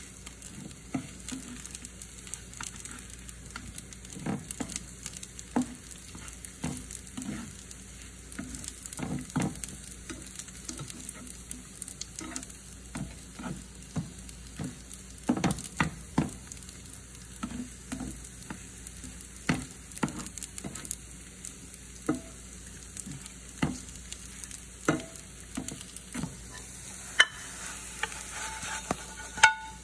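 Potato pancakes sizzling in a nonstick frying pan, with frequent light, irregular knocks and scrapes of a spatula against the pan as they are turned.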